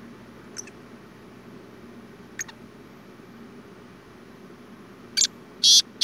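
Male black francolin (kala teetar) calling: two faint short high chirps, then about five seconds in it starts its loud, high call with a short note followed by a longer one.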